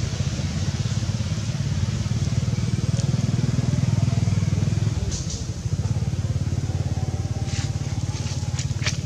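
Low rumble of a motor vehicle engine, swelling to its loudest about four seconds in and dropping back at about five. A few short, sharp crackles near the end.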